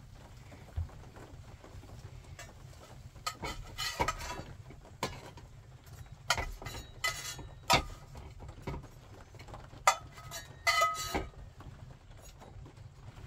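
A metal spatula scraping and clinking against a cast-iron skillet and an enamelware plate as fried eggs and meat slices are served out, in a string of separate clicks and scrapes, one near the end ringing briefly. A steady low rumble lies underneath.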